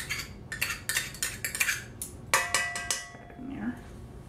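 Metal measuring spoon clinking and tapping against a stainless steel mixing bowl, knocking ingredients out of the spoon. A quick run of clinks comes first, then a louder clang a little after two seconds in that rings briefly.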